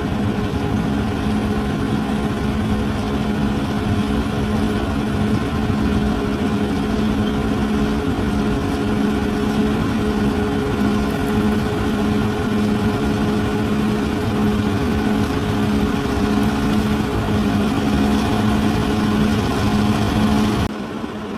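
Large bulldozer's diesel engine running at a steady pitch, with no revving; the sound drops in level a little before the end.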